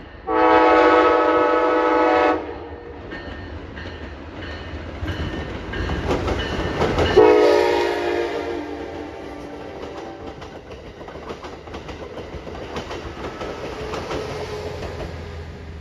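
Amtrak passenger train sounding its horn as it passes: one long blast near the start, then a second, shorter blast about seven seconds in whose pitch drops slightly as the locomotive goes by. Between and after the blasts the train rumbles past with wheels clattering over the rail joints, fading toward the end.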